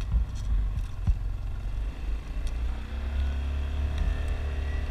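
Low wind rumble on the microphone with a couple of knocks in the first second. About three seconds in, an engine comes in running, its pitch rising slowly.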